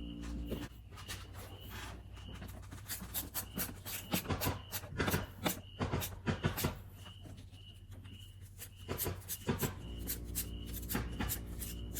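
Irregular clicks and knocks of parts and tools being handled as the air intake is refitted onto the engine, in two busy clusters. A low steady hum stops about half a second in and comes back near the end.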